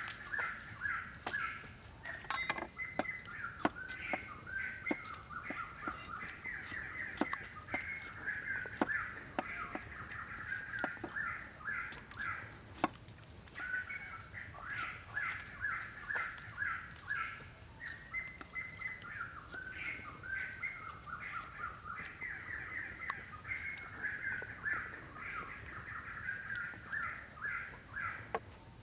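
Birds calling in long runs of short repeated notes over a steady high-pitched insect drone, with scattered sharp taps of a knife on a wooden chopping block as shallots are sliced.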